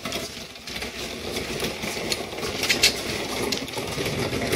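A miniature toy truck pulled along on a string, its wheels rolling over rough concrete in a steady rumble.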